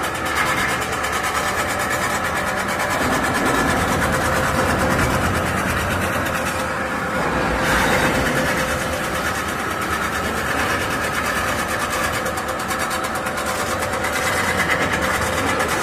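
CNC pot-spinning machine running, spinning a metal pot blank while its tooling forms it: a steady mechanical whir with a few held tones. It swells briefly about eight seconds in.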